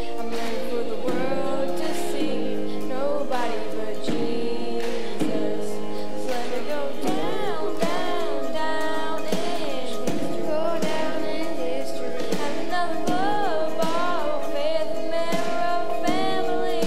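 A group of children singing a gospel song together into microphones, accompanied by electric bass and acoustic guitar.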